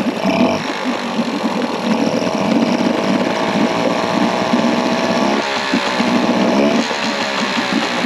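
2001 Yamaha 5 hp two-stroke outboard motor running steadily in a test tank, its speed wavering briefly a little past the middle.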